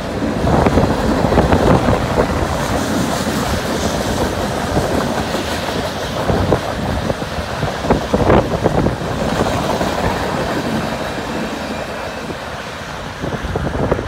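Freight cars of a CN freight train rolling past: a steady rumble of steel wheels on rail, with many quick clicks and knocks from the wheels and couplings.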